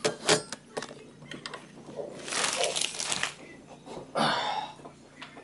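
Camera microphone rubbing against a jacket, with a few knocks near the start and two longer bursts of rustling and scraping about two and four seconds in.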